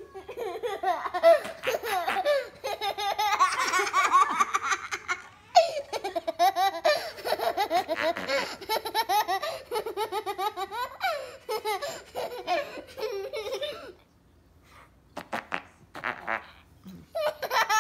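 High-pitched laughter in long runs of quick pulses, dropping away briefly about 14 seconds in and starting up again near the end.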